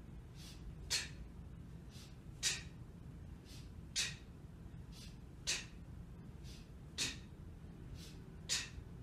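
Sharp, hissing exhales forced out by a person doing one-arm kettlebell swings, one with each swing about every second and a half, six in all. Quicker, fainter sniffs of breath in fall between them.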